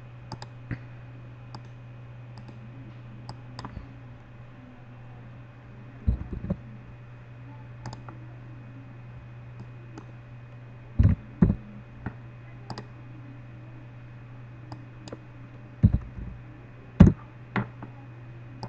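Scattered clicks of a computer mouse and keyboard, with a few louder knocks among them, over a steady low hum.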